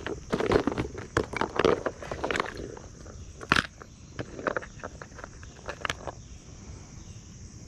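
Irregular rustling and clicking from close movement or handling, dense for about six seconds and then thinning out, over a steady high-pitched insect drone.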